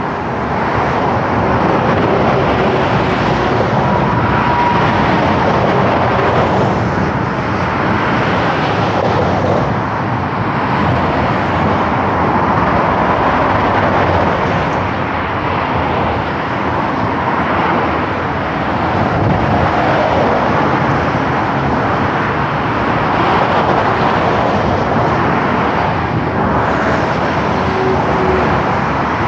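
Continuous Autobahn traffic: vehicles passing at speed in both directions, the tyre and engine noise swelling and easing as they go by.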